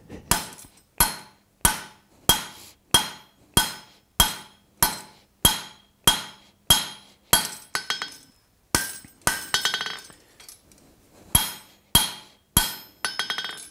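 Hand hammer striking red-hot mild steel bar on the anvil over a kiss-block guide, drawing out a tong jaw to thickness. About a dozen even blows, roughly one every two-thirds of a second, each with a bright metallic ring. After a brief pause about eight seconds in comes a quick cluster of strikes, and then a few more spaced blows near the end.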